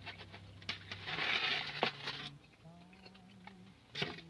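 Paper food wrapper crinkling and crunchy fried food being handled and chewed, with a sharp crunch about four seconds in as a piece of fried chicken is bitten. Faint Christmas music plays underneath.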